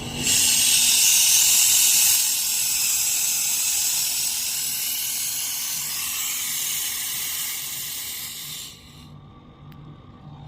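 Refrigerant gas hissing out of an air conditioner's service port as the overcharged system is bled down. The hiss starts abruptly, is loudest for the first couple of seconds, slowly weakens, and is shut off sharply about nine seconds in.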